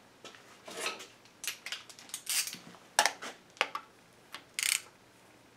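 Hand tools and small fasteners clinking and scraping against the aluminium VANOS unit as its screws are fastened: an irregular run of about a dozen sharp metallic clicks and short scrapes, loudest about three seconds in.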